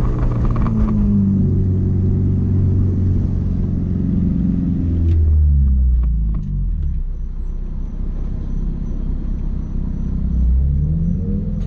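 Honda four-cylinder car engine running: it holds a steady pitch, drops to a low rumble about five seconds in, then revs up again near the end. A few faint clicks come in the quieter middle part.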